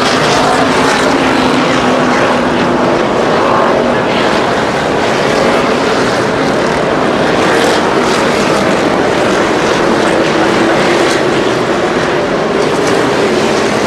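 A pack of NASCAR Cup stock cars passing one after another, their V8 engines running loud and steady.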